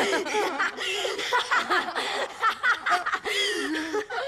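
Young women laughing and giggling in quick, broken bursts, close up.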